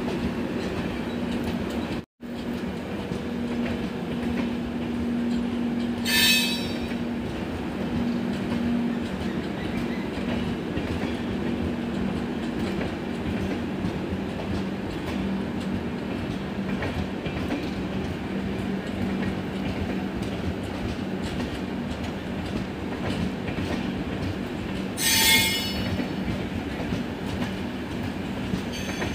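Passenger coaches of an express train rolling steadily past on departure: a continuous rumble of wheels on rail with a low steady hum. Two short, high-pitched wheel squeals cut through, one about six seconds in and one near the end.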